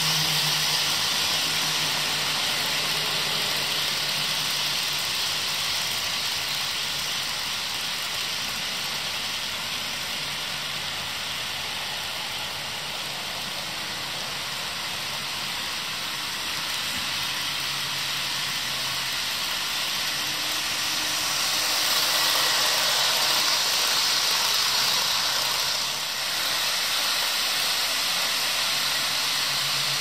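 HO scale model trains, NKP RS-11 diesels with a freight and a PA-1-hauled passenger train, running on floor track: a steady whir of metal wheels rolling on rail and the locomotive motors' low hum. It swells a little about two-thirds of the way in and dips briefly just after.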